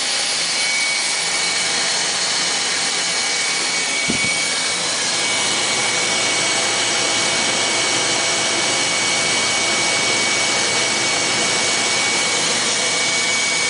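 Selective soldering machine running: a steady rushing of fans or blowers with a thin, steady high whine, and a single knock about four seconds in.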